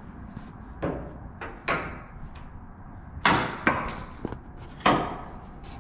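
A series of sharp knocks and bangs at irregular intervals, the loudest in the second half, from work on a truck's wheels and fenders.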